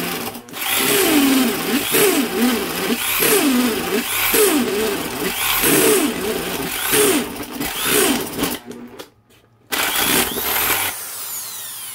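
Makita HP2040 corded hammer drill in hammer mode, driving a 1-inch spade bit into wood at high gear: the motor's pitch sags again and again under load and recovers. It cuts out briefly just after the start and for about a second around 9 s in, starts again, then winds down with a falling whine. The stalls come from the hammer action giving the spade bit a deeper bite than the high-geared motor has torque for.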